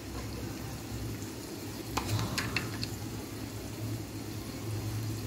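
Onions and spices cooking in oil in a wok: a faint sizzle over a low steady hum, with a few light clicks about two seconds in.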